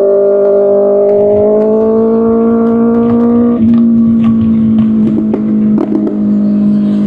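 Kawasaki Ninja ZX-6R inline-four engine through an Arrow Pro Race exhaust, pulling hard under way with its pitch climbing slowly, then changing abruptly about halfway through as a gear is shifted. Toward the end the exhaust note breaks up with some crackle.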